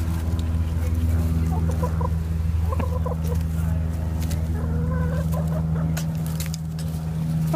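Hens clucking in short, scattered calls over a steady low hum.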